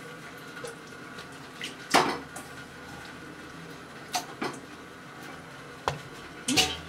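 A cooking utensil knocking and scraping against a nonstick frying pan as pieces of pork intestine and potato are stirred: about six sharp clacks at uneven gaps, the loudest about two seconds in, over a faint steady hiss. The intestine is being cooked to firm it up before frying in oil.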